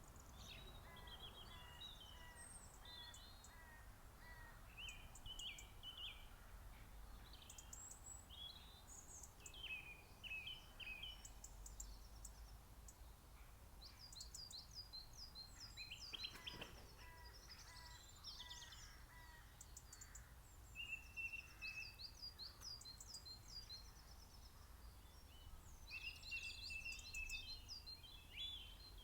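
Several songbirds singing and calling at once, faint, with overlapping chirps and trills and a steady run of evenly spaced notes from one bird near the start and again about two-thirds through, over a low background rumble.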